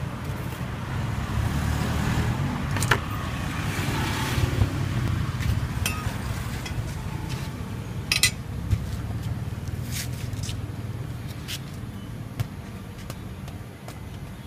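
Steady low rumble of road traffic, with a few sharp clicks and taps scattered through it, the loudest a quick cluster about eight seconds in.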